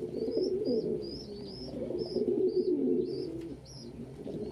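Domestic pigeons cooing, low warbling coos that rise and fall, with a quick run of short high chirps, about three a second, over them.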